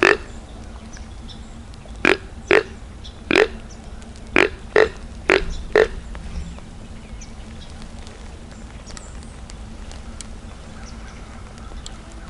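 Whitetail deer grunt call blown by a hunter: about eight short, deep grunts in the first six seconds, mostly in pairs, imitating a buck grunting during the rut.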